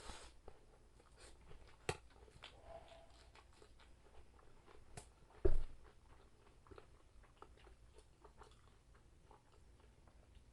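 A person chewing food close to the microphone, with small wet clicks and light crunches, a couple of sharper ticks, and a dull thump about five and a half seconds in.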